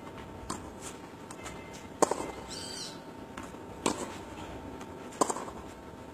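Tennis balls struck with rackets during a drill: three sharp hits about one and a half to two seconds apart, with fainter ball bounces between them.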